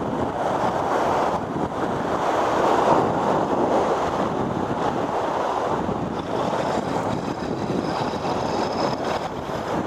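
Sea waves washing and breaking over shoreline rocks in a steady rush, with wind buffeting the microphone.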